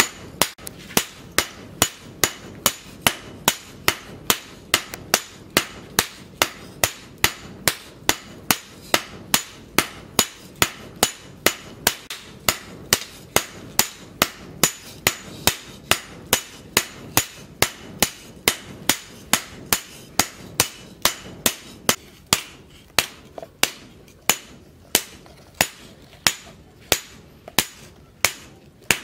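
Hammer blows on a red-hot leaf-spring steel cleaver blade lying on a steel post anvil: a steady rhythm of sharp metallic strikes, about two a second, each with a brief ring.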